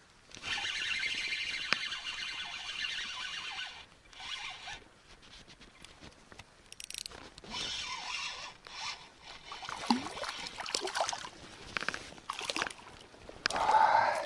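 Panda 2000F spinning reel being cranked: a steady whirring rasp of the gears for about three seconds, then shorter spurts of winding, as line is retrieved on a hooked small fish. Near the end there is a louder burst as the fish splashes at the surface.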